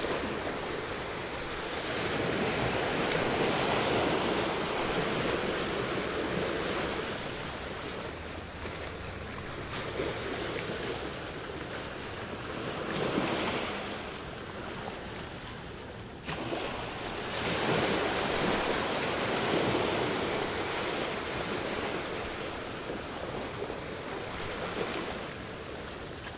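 Ocean surf: waves breaking and washing in and out in slow swells, each rising and falling over several seconds.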